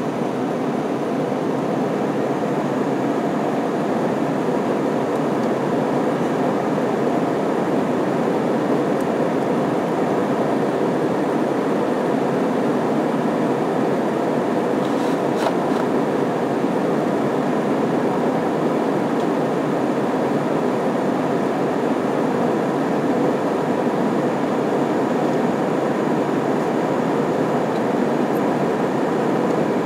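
Steady engine and airflow noise heard inside the passenger cabin of an Airbus A320 in its climb after takeoff.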